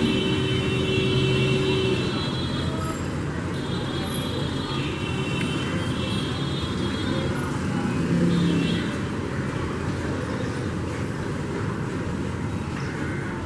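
Steady road traffic noise with a low engine hum, and a high steady tone over the first two seconds.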